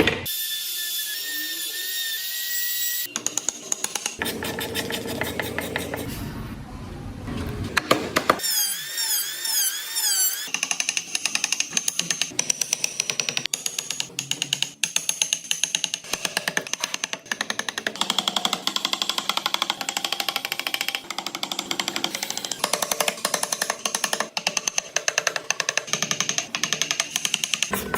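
Power tools working wood in a run of short segments, the sound changing abruptly every few seconds. The longest stretch, from about ten seconds in, is a fast, steady buzz of rapid strokes.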